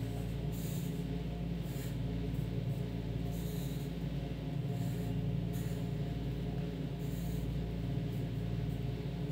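Pencil scratching on paper in short strokes every second or so, faint under a steady low hum from a machine running in the room.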